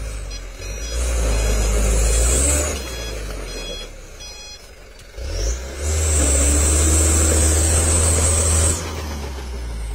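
Loaded light dump truck's diesel engine working as it crawls over a rough, potholed dirt road. The sound swells twice into loud stretches of a few seconds, each carrying a steady high whine, and drops back to a quieter running sound between them.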